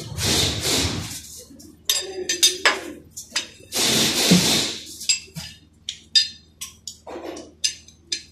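Socket wrench and hand tools clinking and knocking against metal under a car: irregular sharp taps, some with a brief metallic ring, between two longer rustling noises, one at the start and one about four seconds in.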